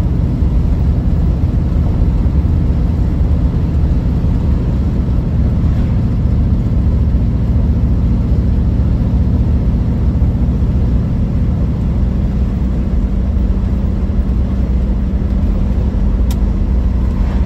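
Triumph Stag V8 engine running steadily at cruising speed, heard from inside the cabin, with a constant drone of tyre and road noise.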